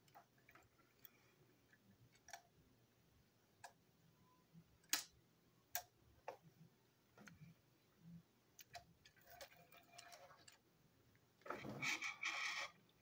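Scattered small clicks and taps of plastic Plarail toy-train parts being handled on a table, in near silence. Near the end comes a louder stretch of scraping as a screwdriver is worked on the motor unit.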